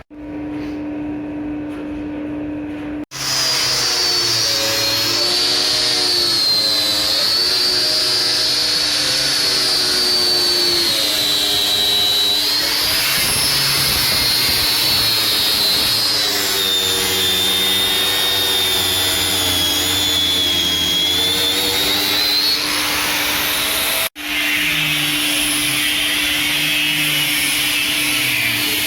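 Electric power tool motor running continuously under load, its whine wavering up and down in pitch as the load changes, with two abrupt breaks in the sound.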